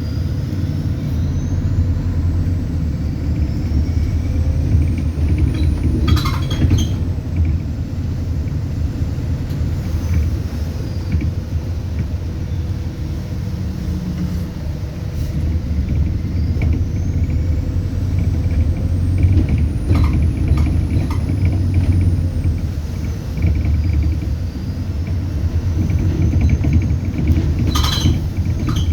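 Inside an ADL Enviro400 Hybrid double-decker bus on the move: a steady low rumble from the drivetrain, with a high turbo whistle that rises over a few seconds, holds, then falls away, twice. A couple of short knocks or rattles come through the body, one about six seconds in and one near the end.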